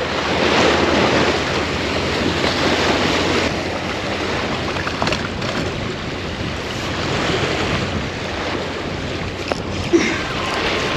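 Waves washing on the shore with wind buffeting the microphone: a steady rushing noise that swells and eases slowly. A brief sharp sound stands out near the end.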